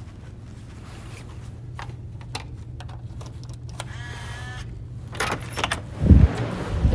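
Hotel room door being unlocked with a key card and opened: a brief electronic chirp from the lock about four seconds in, a few clicks as the lock releases, then two heavy clunks of the lever handle and latch near the end as the door is pushed open. A steady low hum runs underneath.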